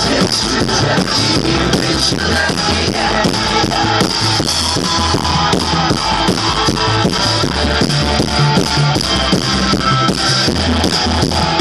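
Live rock band playing an instrumental passage: electric guitar, synth keyboard and bass over a steady beat.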